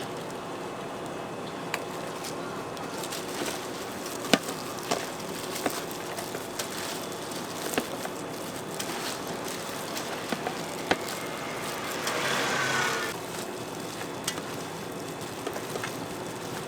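Busy street-stall background noise with scattered sharp clicks and knocks of food being prepared, and a louder hissing swell with a faint rising whine about twelve seconds in.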